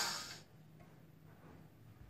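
Background music fading out within the first half second, then near silence with a faint low hum.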